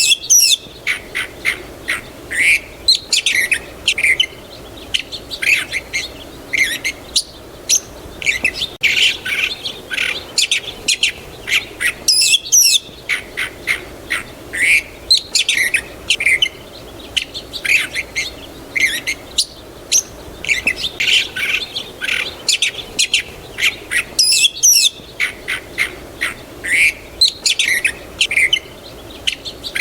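Several small songbirds chirping, with quick, high, short calls crowding over one another without a break.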